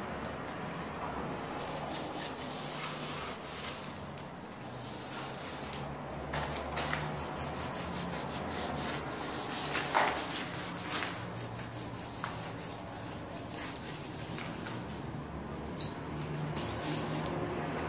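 Hands rubbing and wiping along a window frame while masking tape is peeled off it. There is a continuous scratchy rubbing with a few short crackles, the sharpest about ten seconds in.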